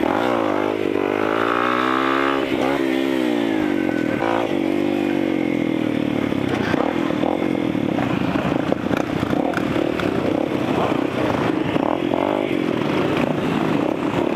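A motorcycle engine up close revving, its pitch rising and falling several times in the first few seconds. After that comes a steady, dense drone of many motorcycle and four-wheeler engines running together.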